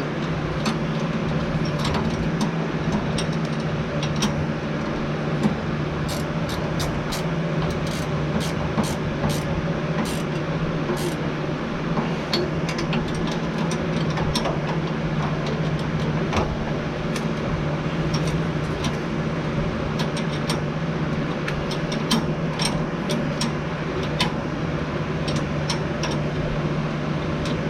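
Steady low mechanical hum, like an engine or motor running, with scattered sharp metallic clicks and clinks from hand tools working on bolted mounting brackets.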